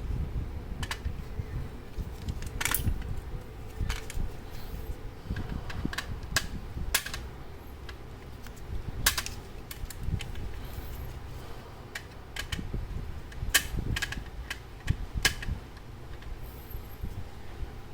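Irregular sharp clicks and taps, as of small metal parts and tools being handled on a clock movement, over a steady low rumble.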